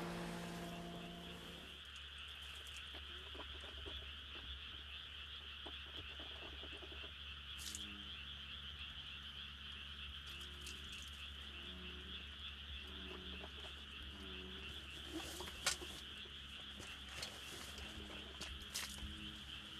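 A faint evening chorus of frogs by the water: a steady high trill throughout, with short low croaks repeating around the middle and a few soft clicks near the end.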